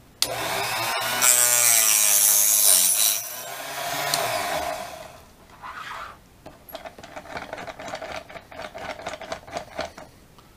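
Mini cut-off saw switched on, its small motor whining and dropping in pitch as the blade cuts through a thin brass tube. The whine is loudest for the first three seconds, then winds down by about five seconds in. After that comes a quieter run of rapid light scraping and clicking.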